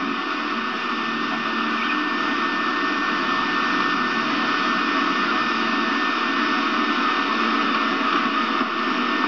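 Steady hiss with a faint hum and no distinct events.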